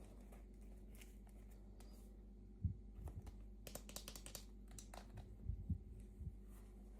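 Faint scattered taps, clicks and light rustles of hands handling small toy packaging, over a low steady hum.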